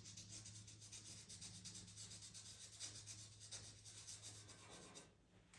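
Faint scratchy rubbing of a white pastel pencil stroked rapidly over Pastelmat paper, blending and softening a white area, stopping near the end.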